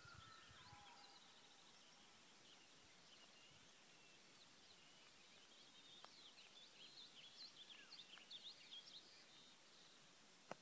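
Faint songbird chirps and short high whistled glides, a few at first and many more from about six and a half to nine and a half seconds in, over a near-silent outdoor background.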